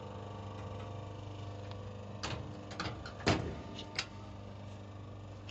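Steady low hum of the crimping machine, which is switched on, with a few light clicks and knocks in the middle, the loudest a little past halfway. They come from the foot pedal's plug being screwed onto its port.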